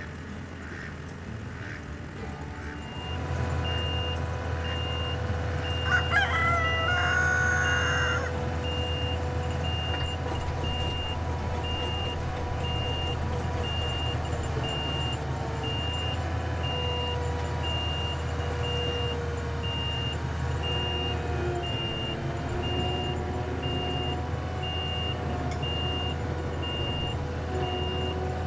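Skid steer engine running steadily, starting up about three seconds in, with a high warning beep repeating about twice a second. A rooster crows once, the loudest sound, about six seconds in.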